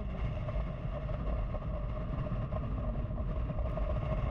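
Motorcycle engine running steadily at cruising speed, with wind rushing over the microphone.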